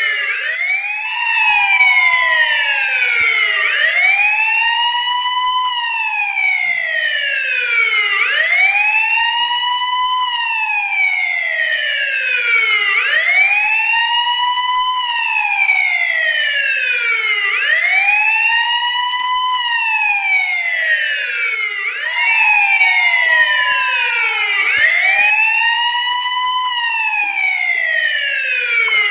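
Police siren wailing: its pitch rises and falls in a steady cycle of about four and a half seconds. A second wail overlaps slightly out of step.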